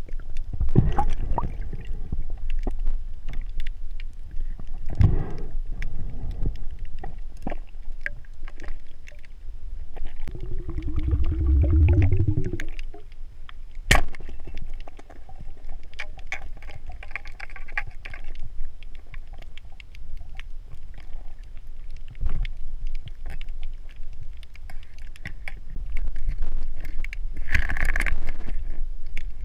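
Underwater sound picked up by a diver's camera: a low rumble of water with several swells, one sharp click about fourteen seconds in, and a brighter burst of handling noise near the end as the pole spear's shaft and rubber bands are handled.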